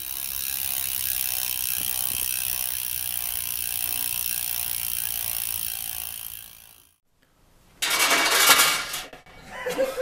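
Bicycle freewheel ratcheting steadily as the rear wheel spins and coasts, fading out about seven seconds in. After a brief silence comes a louder burst of noise.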